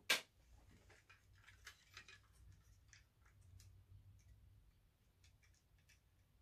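Plastic parts of a toy transforming robot being handled: one sharp click at the start, then faint, scattered small clicks and rattles.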